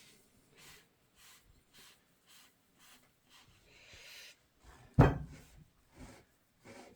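Footsteps at an even walking pace, then a single loud bang about five seconds in.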